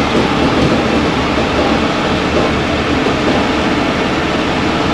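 Heavy truck's diesel engine running steadily, a low rumble under a steady hiss.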